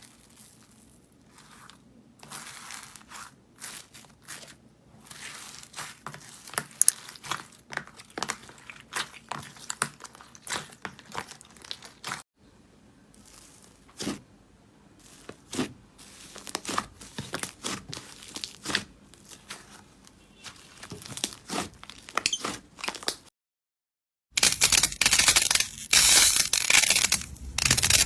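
Slime being worked by hand, giving a run of small sharp clicks and crackling pops. After a brief silence near the end, a louder, denser crackling follows.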